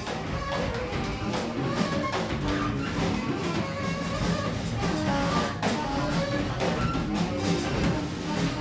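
Free jazz quartet playing live: saxophone, drum kit, electric bass and double bass in a dense, busy improvisation, with frequent sharp cymbal and drum hits.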